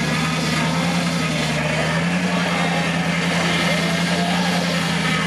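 Jeep CJ5's V8 engine running steadily under load as the vehicle crawls up a muddy slope, its pitch rising slightly about two seconds in.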